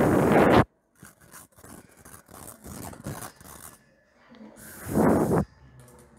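A burst of loud rushing noise like storm wind, then faint scraping, rubbing and clicking close to a microphone, and a second short burst of rushing noise about five seconds in.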